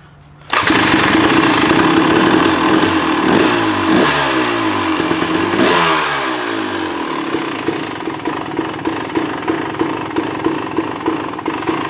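2023 KTM 300 XC two-stroke dirt bike engine electric-started, catching about half a second in, then revved in a few blips that fall away before it settles to running steadily.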